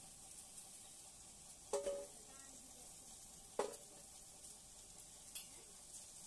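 Vegetables frying in a kadhai with a steady, faint sizzle, while a metal spatula stirs them and knocks twice against the pan, each knock ringing briefly.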